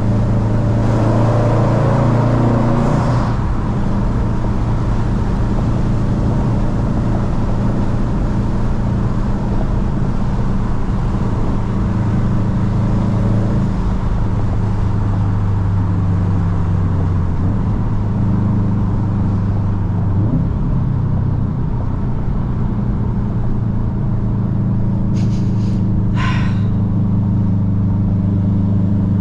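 Car engine running at a fairly steady speed with road noise, heard from inside the cabin; its pitch shifts slightly a few times. A brief high squeal near the end.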